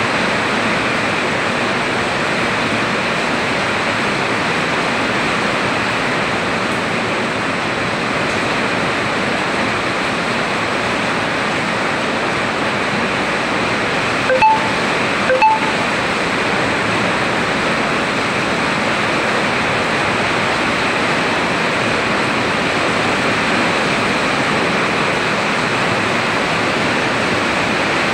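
Heavy rain pouring steadily, with water running off a roof edge. Around halfway through there are two brief sharp sounds about a second apart.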